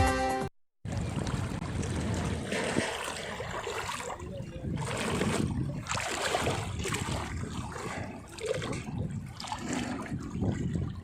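Music ends abruptly at the very start. Then the floodwater of the swollen Godavari river rushes and churns unevenly.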